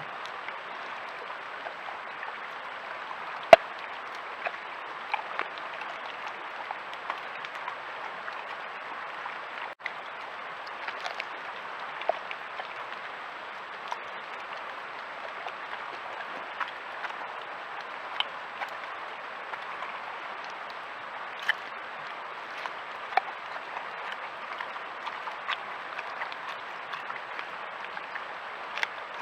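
Bear crunching a ham bone: irregular sharp cracks and crunches, the loudest about three and a half seconds in, over a steady hiss.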